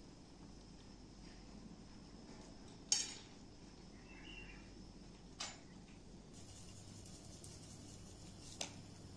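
A stainless steel cooking pot and utensils being handled: a few sharp metal clinks, the loudest about three seconds in, over a quiet background that turns to a faint steady hiss past the middle.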